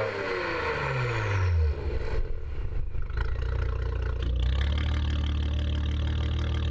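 Porsche Macan GTS twin-turbo V6 through a Milltek downpipe and valved rear silencer exhaust, its revs falling back from a blip and settling into a steady idle about a second and a half in.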